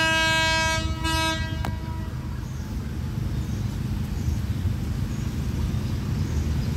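Horn of an approaching SRT Alsthom diesel-electric locomotive sounding two blasts on one note, the first about twice as long as the second. A click follows, then a low steady rumble.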